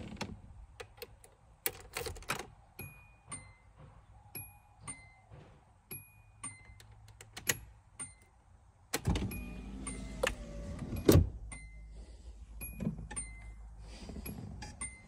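Nissan 240SX's four-cylinder engine idling low under the cabin, while the turn-signal flasher relay ticks in a regular tick-tock. About nine seconds in a louder whirr joins for a couple of seconds, with a sharp knock near eleven seconds.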